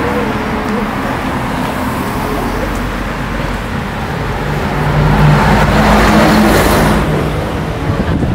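Street traffic: cars passing on a town road, with one vehicle going by close and loudest about five to seven seconds in, its engine a steady low hum under the tyre noise.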